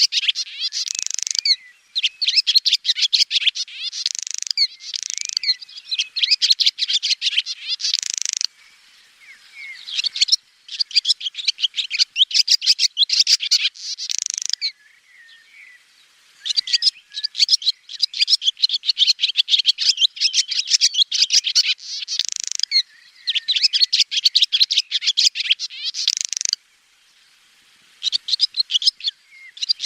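Swallow twittering: bouts of rapid, high chirps and trills lasting several seconds each, broken by short pauses about a third of the way in and about halfway, and a longer pause near the end.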